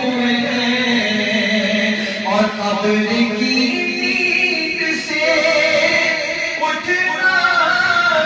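A man singing an unaccompanied naat, an Urdu devotional song, into a microphone. He draws out long ornamented phrases over a steady low held tone.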